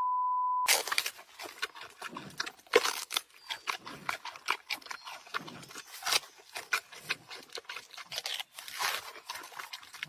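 A short steady test-tone beep at the start, then a giant panda eating a bamboo shoot close to the microphone: irregular crisp crunches and clicks of biting and chewing.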